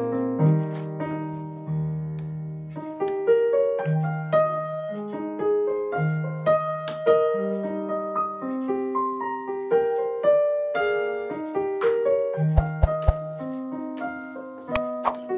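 Background piano music: a slow melody of single notes over lower held notes.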